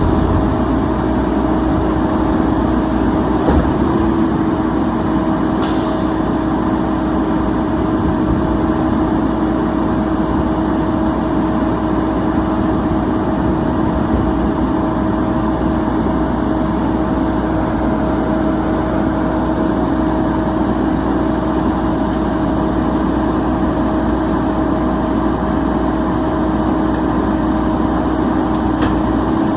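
Mack LE garbage truck with a Heil Half-Pack body, its diesel engine running steadily with a continuous steady hum. There is a short hiss of air about six seconds in.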